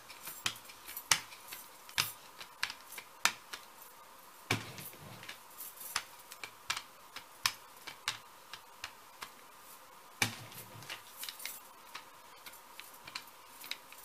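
Small hand brayer being rolled over paper on a gel printing plate: a run of irregular light clicks and ticks, with duller knocks about four and ten seconds in.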